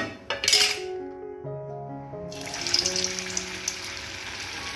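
Background music, with a vegetable manchurian ball deep-frying in hot oil in a steel kadai: a brief hiss just after the start, then a steady oil sizzle from about two seconds in.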